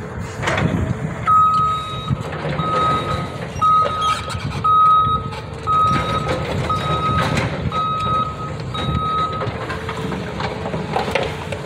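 Backup alarm on heavy demolition machinery: eight steady single-pitch beeps about a second apart, stopping near the end, over a low machine rumble.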